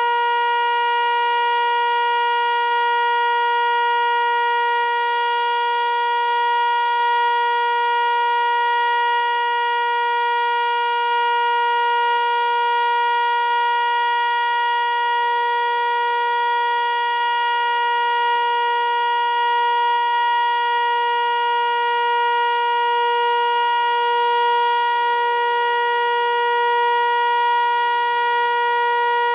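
Federal Signal Eclipse 8 outdoor warning siren sounding a loud steady tone at full speed, the pitch held level without rising or falling: the Alert signal.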